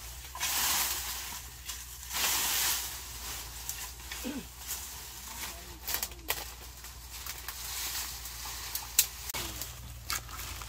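Dry leaf litter crunching and rustling as a long-handled digging tool is jabbed into the ground. There are two longer rustling bursts near the start, then scattered sharp clicks and knocks from the tool and the litter.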